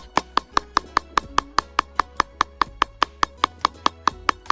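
Rapid, even tapping, about six sharp taps a second, keeping a steady beat throughout.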